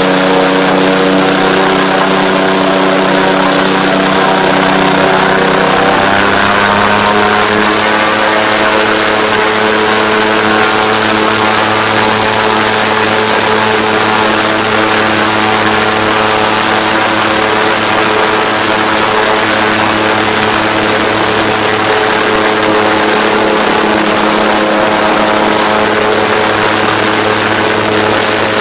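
Airboat's engine and caged air propeller running hard, a loud steady drone under the rush of air. It picks up speed about six seconds in, then holds steady.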